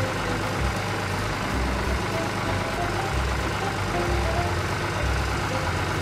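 Heavy truck engines running steadily with a low, uneven rumble.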